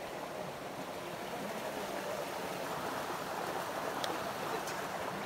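Shallow river flowing, a steady rush of water.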